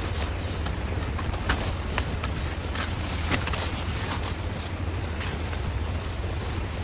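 Steady rain falling, with many sharp drop ticks over a constant hiss and a low rumble underneath. A brief high chirp comes about five seconds in.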